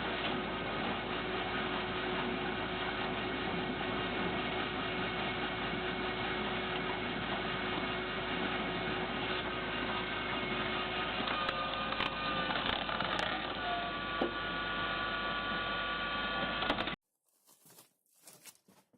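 A homemade firewood splitter's machinery running steadily, with a few sharp clicks about twelve seconds in. The sound cuts off abruptly about two seconds before the end, leaving only faint knocks.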